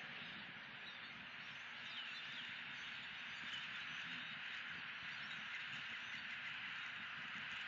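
Steady outdoor animal chorus, a dense, even high drone of calling frogs and insects, with a few faint bird chirps about two seconds in.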